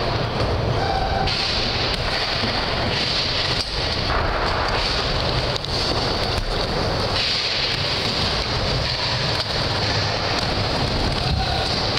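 Skateboard wheels rolling on a wooden mini ramp, a steady rumble within the general din of an indoor skatepark, with a couple of faint knocks.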